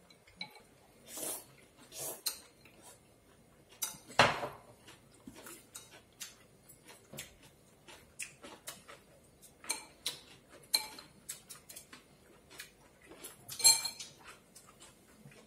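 Chopsticks and a fork clicking against china bowls and plates while people eat. Scattered light clicks, with a louder clink about four seconds in and another near the end.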